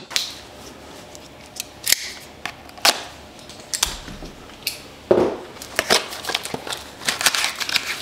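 Small cardboard retail box being handled: scattered light clicks and scuffs, then a busier run of rustling and tapping about five seconds in as its end flap is worked open.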